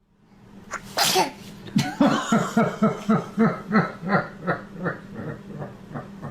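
Laughter: a rapid run of ha-ha pulses, about four a second, tapering off toward the end, after a short sharp burst about a second in.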